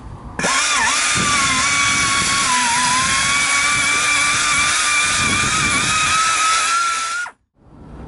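Pneumatic tire buffer spinning a carbide reamer bit, reaming out a nail hole in a truck tire: a steady air hiss with a high whine that starts suddenly and runs for about seven seconds. Its pitch dips briefly about a second in and again around three seconds, then it cuts off abruptly.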